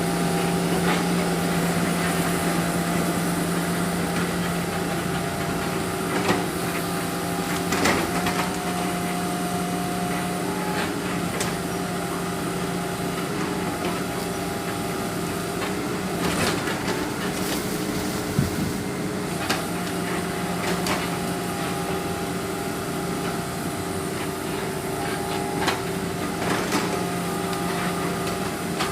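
Excavator's diesel engine running steadily with a hydraulic whine, and scattered short knocks and clanks as it handles logs.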